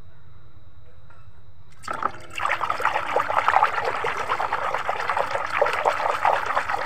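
Hands splashing and swishing through a tub of soapy water, scrubbing a toy clean, starting about two seconds in as a dense run of quick splashes.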